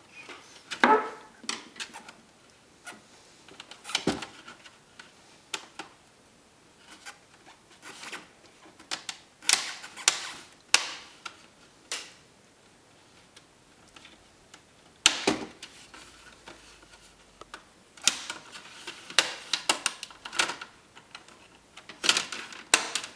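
Plastic screen bezel of a Toshiba Satellite C655D laptop being pried off with a pick: its clips unclip in a long series of irregular sharp clicks and snaps, some of them loud, with softer plastic scraping and handling noises between them.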